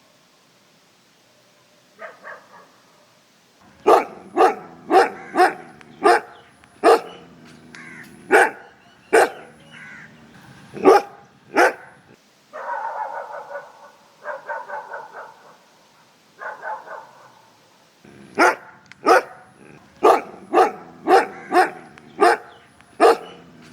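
Dog barking in sharp, separate barks, about ten in a row after a short near-silent start. In the middle the barks give way to several longer, drawn-out calls, then a second rapid run of barks.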